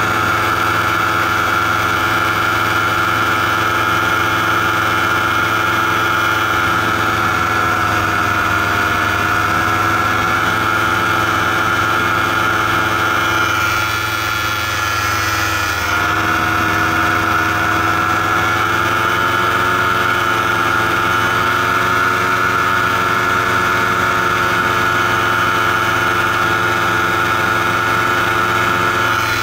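Paramotor engine and propeller running steadily in flight, heard close up. The pitch wavers and, about halfway through, dips briefly as the engine slows a little, then comes back up.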